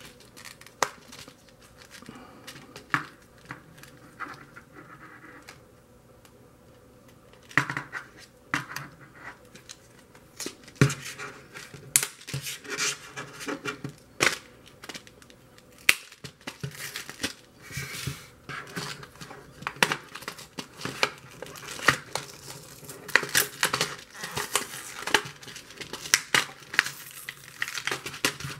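Plastic Tamagotchi blister packaging being handled and opened: crinkling, crackling and snapping of stiff clear plastic against its card backing. It starts with a few scattered clicks, then from a quarter of the way in turns into frequent crackling that gets busier toward the end.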